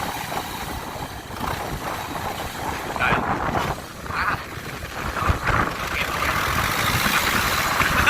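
Kubota DC105X combine harvester running steadily while it harvests rice.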